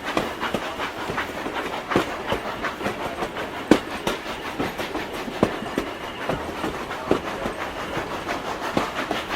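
Sound-effect recording of a steam train running, its wheels clacking over the rail joints in a dense, irregular stream of clicks.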